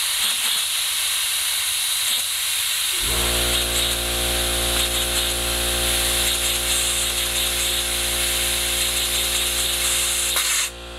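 Compressed air hissing steadily as it is fed into a LEGO compressed-air engine. About three seconds in, the air compressor's motor kicks in with a steady hum under the hiss. The hiss cuts off suddenly near the end while the compressor keeps running.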